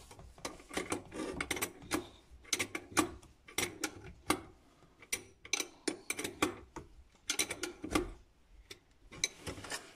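A 19 mm ratchet wrench clicking in irregular runs of sharp metallic clicks as the nut of the faucet's cold-water flex hose is tightened onto the angle valve, with a short lull near the end.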